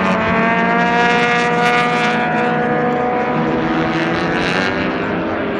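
Racing car engine at speed on a circuit, a rich, loud engine note that falls slowly in pitch over the first few seconds as the car goes by.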